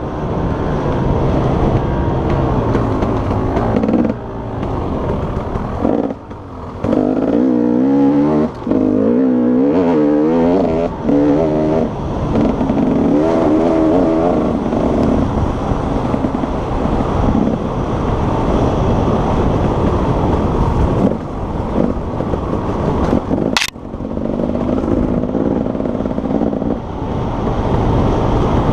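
Enduro motorcycle engine revving hard, its pitch rising and falling again and again as the throttle is opened and closed. A single sharp knock about 23 seconds in.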